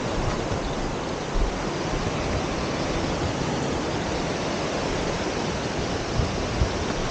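Surf breaking on the beach mixed with wind on the microphone: a steady rushing noise, with a few soft low thumps.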